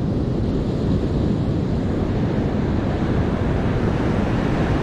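Steady rush of surf breaking on a sandy beach, mixed with wind buffeting the microphone.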